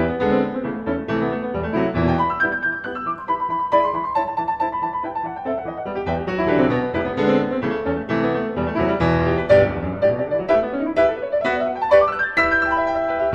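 Background piano music, a flowing run of notes with a rising arpeggio near the end.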